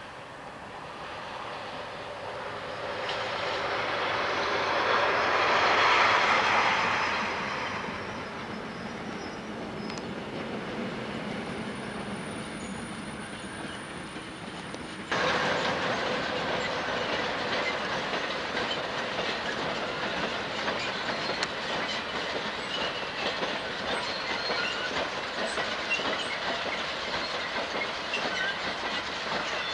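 A Class 58 diesel locomotive hauling a train of coal hopper wagons passes by, the sound swelling to a peak about six seconds in and then fading. About halfway it cuts suddenly to another coal hopper train passing close, with a steady rumble and clatter of wagon wheels over the rail joints.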